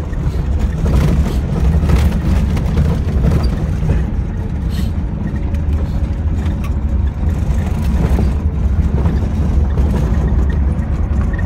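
Lada Niva driving on a rough gravel road, heard from inside the cabin: a steady low engine and road rumble with frequent small rattles and knocks.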